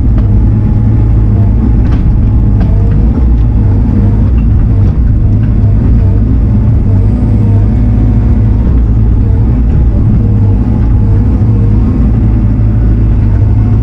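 Diesel engine of a compact earth-moving machine running steadily under load while pulling and spreading dirt, with a whine that rises and falls over it.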